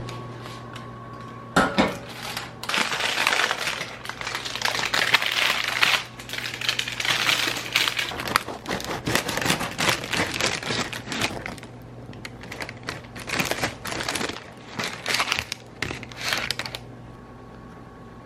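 Busy clattering and rustling of objects being handled, a dense run of small clicks and knocks that stops near the end, over a steady low hum.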